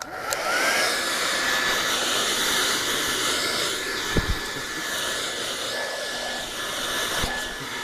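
Handheld blow dryer switched on and running steadily: a rushing airflow with a motor whine that rises as it spins up and then holds one steady pitch. Two brief low thumps, one about four seconds in and another near the end.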